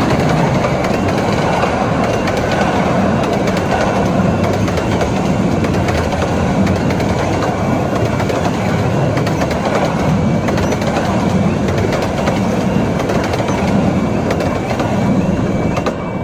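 Train of 15-inch-gauge miniature-railway coaches rumbling and clattering over a level crossing, the wheels clicking over the rail joints. Under it, the crossing's two-tone warning alarm keeps sounding.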